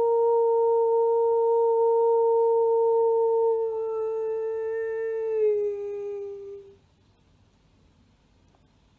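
A woman's voice sustaining one long sung note in a vibrational mantra, with the overtones above it shifting partway through. The pitch then dips slightly and the note fades out about two seconds before the end.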